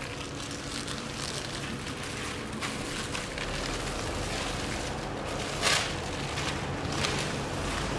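Protective plastic film being peeled off a steel-framed door and bunched up, crackling and rustling, with a louder crinkle about five and a half seconds in.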